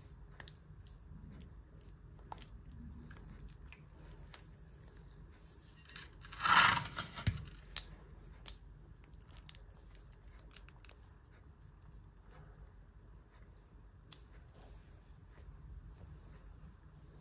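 Knife cutting and breaking apart wild honeycomb: quiet, scattered crunches and clicks, with one louder, noisy burst about six and a half seconds in, followed by a few sharper clicks.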